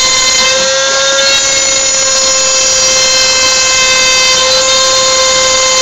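Dremel rotary tool spinning at high speed as the spindle of a homemade CNC router, its bit engraving a red plastic sheet: a loud, steady high-pitched whine. The pitch sags slightly about a second in as the bit takes load, then recovers.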